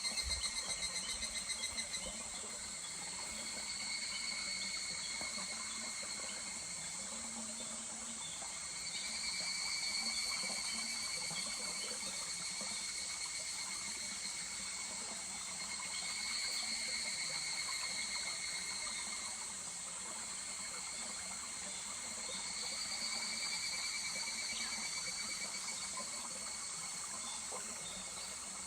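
Higurashi (evening cicadas) calling in rapid pulsing trills that swell and fade about every six seconds, over the steady murmur of a small stream.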